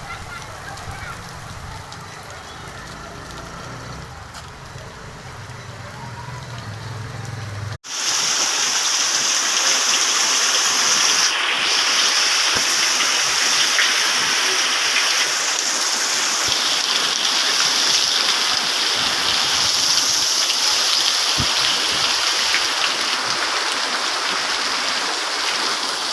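Heavy rain pouring steadily: a loud, even hiss. For the first eight seconds or so there is a quieter wash of water with a low rumble under it, which cuts off abruptly before the downpour comes in.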